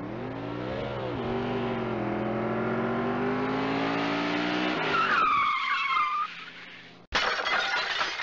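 Car crash sound effect: an engine revving with a rising, wavering pitch, then tyres screeching for about a second. About seven seconds in comes a sudden loud crash, followed by debris rattling and scattering.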